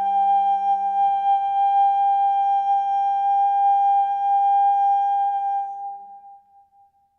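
Soprano voice holding one long high final note over a sustained piano chord; the piano dies away a little before the voice, which fades out near the end.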